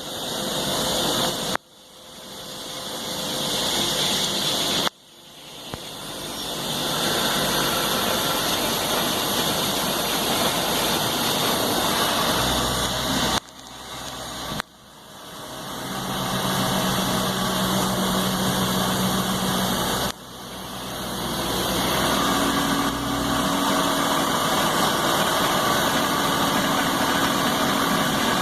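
Citizen C32 VIII CNC sliding-headstock lathe running: a steady machine hum and hiss, broken into several short takes that each cut off suddenly and then build back up in level. A low steady tone sounds through the middle, and a higher steady tone comes in near the end.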